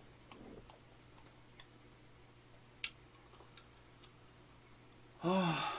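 A quiet room with a few faint scattered clicks, then near the end a man's short drawn-out vocal sound that falls slightly in pitch.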